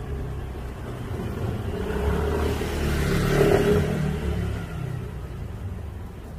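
A motor vehicle passing by with its engine running: the sound builds to its loudest about three and a half seconds in, then fades away.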